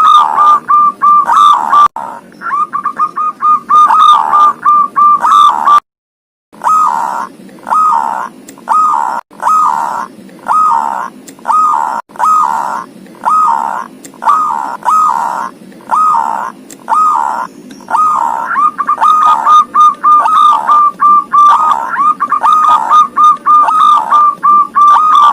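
Zebra dove (perkutut) cooing loudly, in the open, ringing 'ngoar' voice: fast rippling runs of notes at the start and again in the second half, with slower, separate coos about one a second in between. The sound cuts out briefly about six seconds in.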